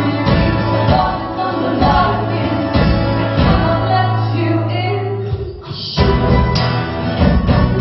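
Live band performing a song with several voices singing over a steady beat. About five and a half seconds in the music drops away briefly, then comes back in full.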